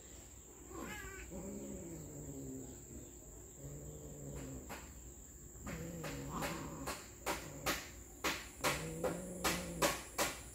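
Cats mating: low, drawn-out yowls that rise and fall in pitch, again and again. In the second half a run of sharp clicks, about two or three a second, comes in and is the loudest sound.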